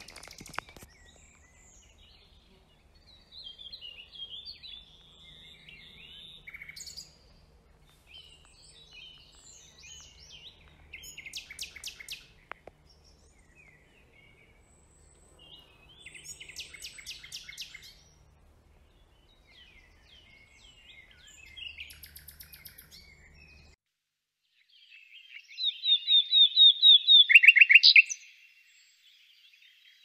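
Common nightingale singing: a series of separate phrases of varied chirps and whistles, broken by short pauses, several of them fast trills of repeated notes. The loudest phrase, near the end, is a rapid run of repeated notes.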